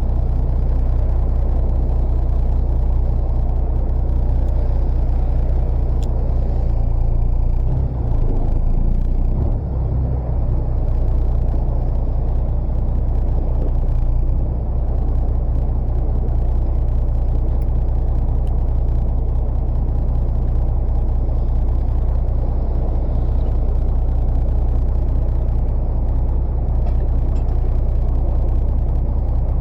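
Fishing boat's engine running with a steady low drone, its pitch wavering briefly around eight to ten seconds in.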